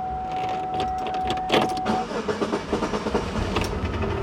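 Car being started: a steady in-car warning tone sounds, a click comes about one and a half seconds in, the tone cuts off around two seconds in, and the engine runs with a low rumble.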